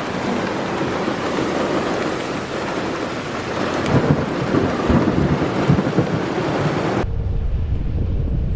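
Heavy thunderstorm rain pouring steadily, with thunder rumbling and surging loudest around the middle. About seven seconds in, the sound switches abruptly to a low steady rumble with a faint hum.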